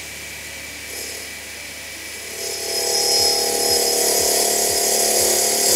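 Raimondi Pikus 130 wet tile saw running with its diamond blade spinning. From about two and a half seconds in, the blade grinds into an aluminium oxide dressing stone, a louder grinding with a steady tone over a hiss, to dress the blade and expose fresh diamonds. The grinding stops near the end.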